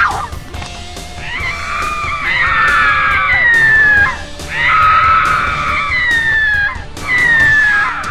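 Rooster crowing over and over, several long calls in a row with short breaks between them, each call ending on a drawn-out falling note.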